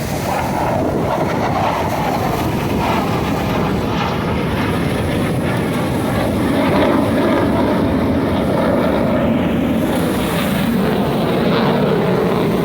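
Airplane engine noise from a display aircraft flying past overhead, a loud steady roar throughout.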